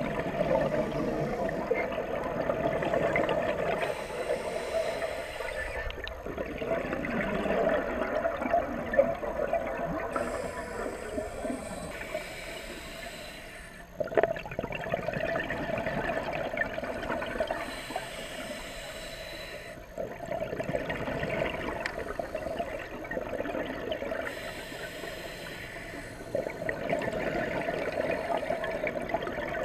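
A scuba diver breathing through a regulator, recorded underwater: bubbling, gurgling exhalations that swell and fade in cycles every few seconds. There is one sharp click about halfway through.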